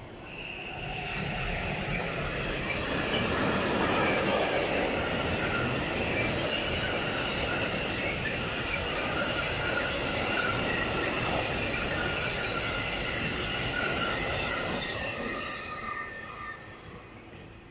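Freight train of tank wagons hauled by two electric locomotives passing, getting louder from about half a second in and fading near the end. A continuous rumble of wheels on rail carries several steady high-pitched squealing tones.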